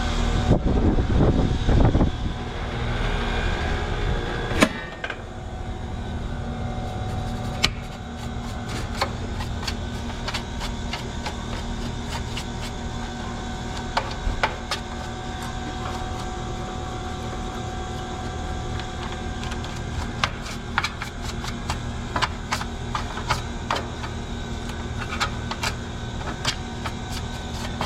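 Air-conditioning condensing units running with a steady machine hum. Light irregular clicks and ticks sound over it, with a single sharper knock about four and a half seconds in.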